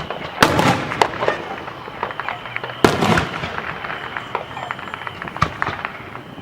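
Aerial fireworks exploding: two loud bangs, about half a second and nearly three seconds in, and a smaller one near the end, with crackling between them.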